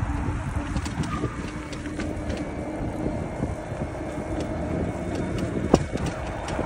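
Wind rumbling on the microphone and a bicycle rattling as it rides along a concrete bike lane, with a scatter of small clicks and one sharp clack about a second before the end.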